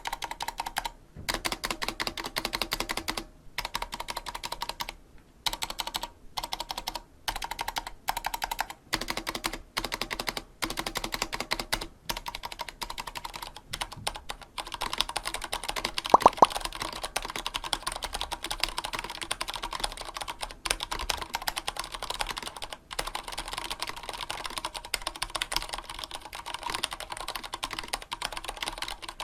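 Vortex Race 3 mechanical keyboard with unlubed Cherry MX Speed Silver switches and DSA dye-sub PBT keycaps being typed on: a rapid stream of key clacks. Over the first half it comes in bursts with short pauses, then the typing runs continuously, with one louder clack about sixteen seconds in.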